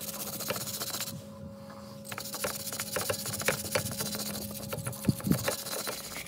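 Steel wire brush scrubbing back and forth over a car's bare wheel hub and studs, bristles scraping on metal in quick strokes, cleaning the hub face before a wheel spacer goes on. The scrubbing eases off for about a second early on, with a faint steady hum underneath.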